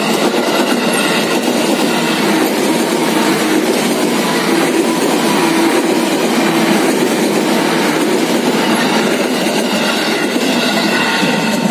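A 205-series electric commuter train passing at close range, its wheels running steadily and loudly over the rails. The noise eases slightly near the end as the last cars go by.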